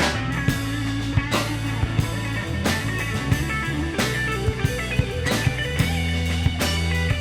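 Live progressive-rock/fusion band playing an instrumental passage with no singing: guitar over a drum kit, with strong accents landing about every 1.3 seconds.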